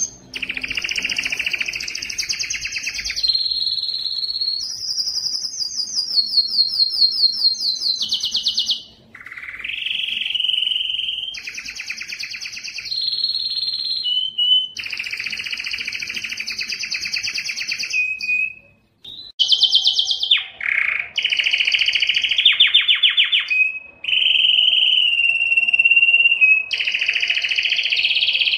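Male canary singing a long run of song: rapid trills and rolls, each held at one pitch for a second or two before switching to the next phrase, with two brief pauses. The song is the excited song of a male in breeding condition.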